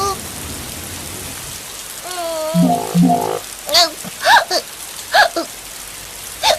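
Steady rain hissing down as a cartoon sound effect, with a string of short, high vocal cries over it from about two seconds in.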